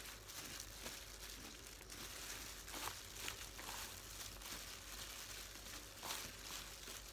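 Hands in thin plastic disposable gloves mixing salad by hand: soft, irregular crinkling of the gloves and rustling of the ingredients as they are tossed together with the seasoning.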